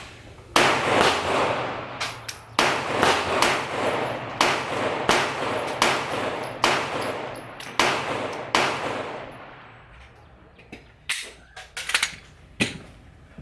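A rapid string of about a dozen gunshots, a shot every half second or so, each echoing off the range. The shots stop about nine seconds in, followed by a few quieter sharp clicks near the end.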